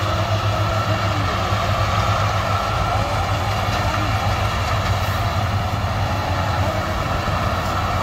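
Vardhman tracked combine harvester running steadily while it cuts and threshes paddy: its engine and threshing machinery make a continuous low hum with a constant mechanical noise.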